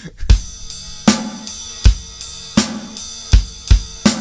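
Acoustic drum kit played live in a slow rock beat: bass drum and snare hitting in turn, under a steady ringing cymbal pattern.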